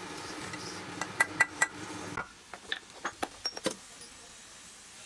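Metal tools and engine parts clinking and tapping during cylinder-head valve work: a few sharp ringing clinks about a second in, then a scatter of lighter taps. A steady background hum cuts off suddenly midway.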